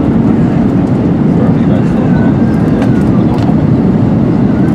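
Airbus A321-211 cabin noise on approach: a loud, steady rumble of the CFM56 engines and airflow over the wing, heard from a window seat.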